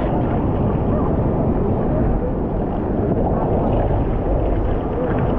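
Sea water sloshing and splashing around a surfboard, with wind rumbling on the microphone of a camera mounted on the board's nose. The noise is steady, with a heavy low rumble.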